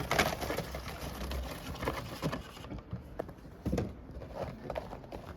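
Pods being put into a paperboard carton by hand: irregular taps, clicks and light knocks as they land and the box is handled.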